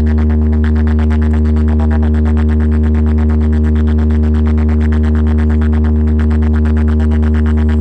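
A loud, steady, deep bass drone with a buzzing edge, a held synthesized bass note played through a large DJ sound-system for a sound check.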